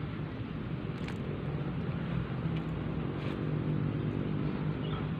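Steady low engine drone from a motor running nearby, with two faint clicks, about a second in and a little after three seconds.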